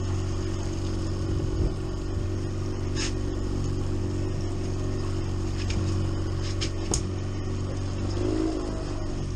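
Outboard motor running steadily at trolling speed, a low, even hum, with a few sharp clicks about three seconds in and again between six and seven seconds.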